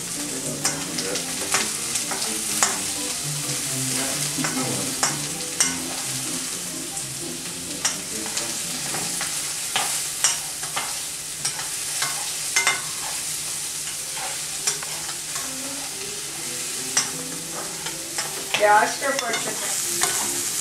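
Sliced vegetables sizzling in a hot wok, stirred with a plastic spoon that scrapes and taps against the pan many times.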